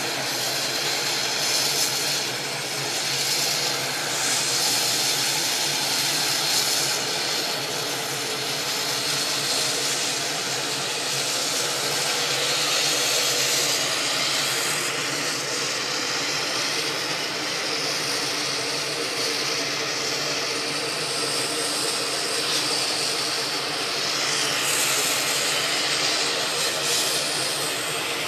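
Sikorsky UH-60 Black Hawk helicopter's twin GE T700 turboshaft engines running on the ground: a steady, high rushing turbine noise.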